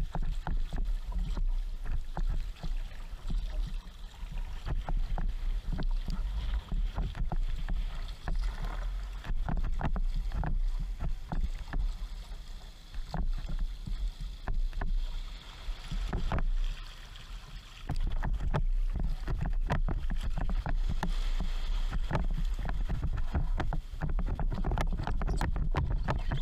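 Water splashing and sloshing around a sea kayak under way, with wind rumbling on the microphone throughout.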